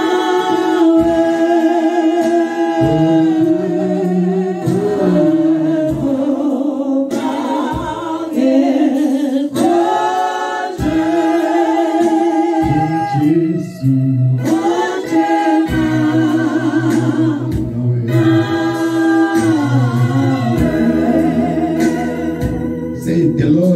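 Women's voices singing a gospel worship song into microphones, holding long notes.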